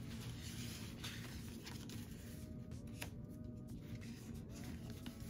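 Paper sticker sheets and planner pages being handled, with a few soft rustles and light paper shuffles over a low steady background hum.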